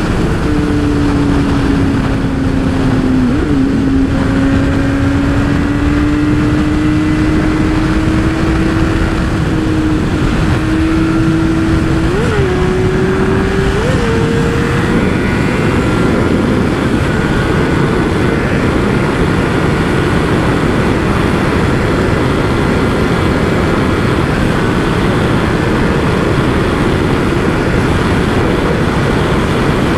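Motorcycle engine running while riding at speed, its note drifting and twice jumping up in pitch near the middle, under a steady rush of wind noise that swamps the engine in the second half.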